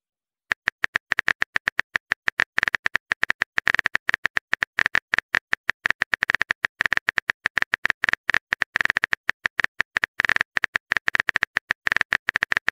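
Phone keyboard typing sound effect: a fast, irregular run of short clicks, several a second, as a text message is typed out letter by letter. It starts about half a second in.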